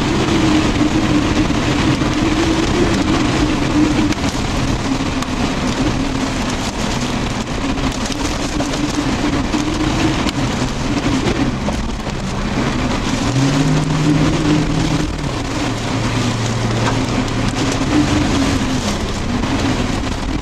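Strong wind and heavy rain beating on a car, heard from inside, with a wavering low drone underneath. About 13 seconds in a short rising tone comes in and levels off, then gives way to a lower steady tone for a couple of seconds.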